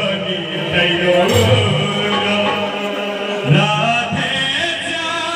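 Kirtan: devotional group chanting and singing with musical accompaniment, with sustained low notes held underneath.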